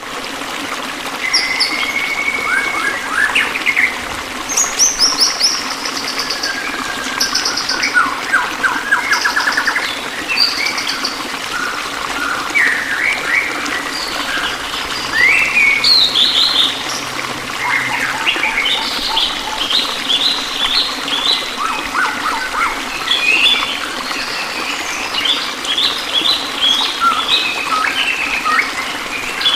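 Several songbirds chirping, trilling and whistling in quick overlapping phrases, over a steady low background hiss.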